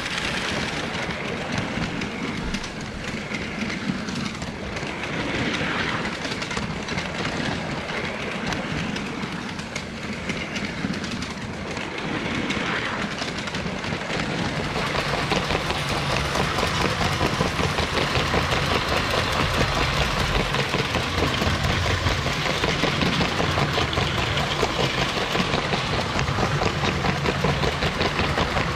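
LEGO 12-volt toy train running along plastic track: motor noise with rapid clicking of the wheels over the rails. It gets louder and more even about halfway through.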